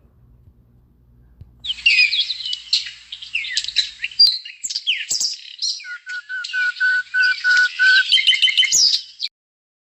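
Small songbird chirping and singing in quick varied notes, with a run of evenly repeated notes about two-thirds through; it starts about two seconds in and cuts off suddenly near the end.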